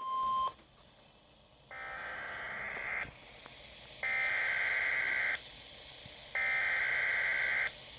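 Emergency Alert System SAME header tones from a weather radio broadcast: three harsh, buzzing digital data bursts, each about a second and a half long with a second's pause between, announcing a new weather alert. Just before them, a steady alert tone sounds for half a second and cuts off.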